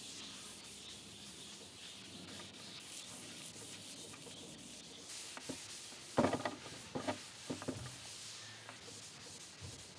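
Cloth rag wiping gel stain into a veneered wood tabletop by hand: a soft, steady rubbing, with a few brief knocks about six and seven seconds in.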